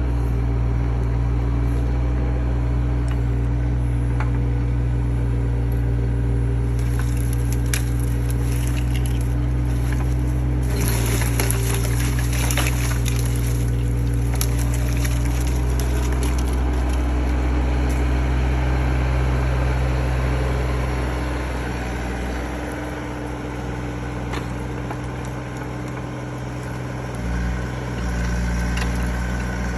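Mini excavator's diesel engine running steadily while its log grapple crushes and snaps brush and wood, with crackling and breaking from about seven to sixteen seconds in. The engine drops lower for a few seconds near the end, then picks up again.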